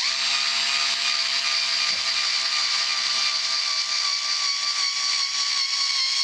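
Drill Master 4.8 volt cordless screwdriver's small motor running steadily under load, driving a long screw into hard pallet wood, its whine sinking slightly in pitch as it labours.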